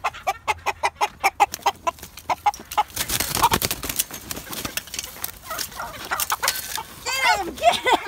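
Chickens being chased, clucking rapidly in alarm at about five clucks a second, then squawking near the end. A noisy flurry, a scuffle of wings and feet in the dirt, comes about three seconds in.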